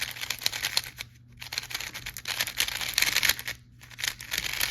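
QiYi X-Man Tornado V4 magnetic 3x3 speed cube being turned quickly for its first turns out of the box: a dense run of rapid plastic clicks and clacks, with two brief pauses, about a second in and near the end.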